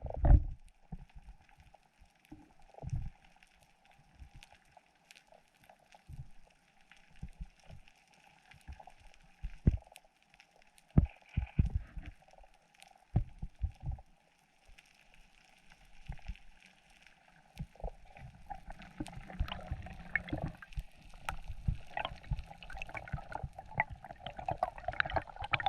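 Water sloshing and gurgling around a diver's camera, with scattered dull knocks, becoming busier and more continuous in the last several seconds.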